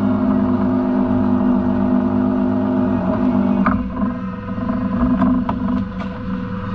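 A boat's outboard motor running steadily, its note shifting about four seconds in, with several sharp knocks as a lobster pot is handled at the rail near the end.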